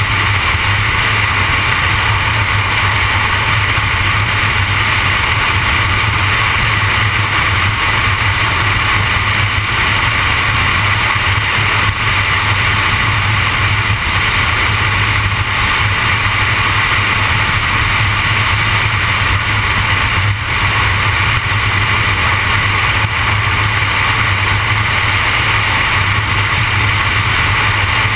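A car driving at a steady speed: constant road and engine noise that holds the same level and pitch throughout.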